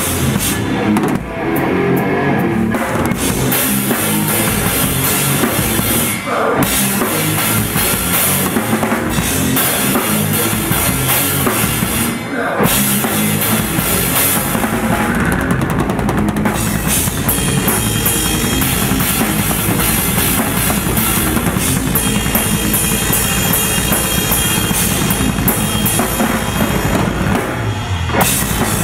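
Live death metal played by a full band, with the drum kit at the front: fast bass-drum strokes, snare and cymbals. The playing stops briefly about a second in, about six seconds in and about twelve seconds in.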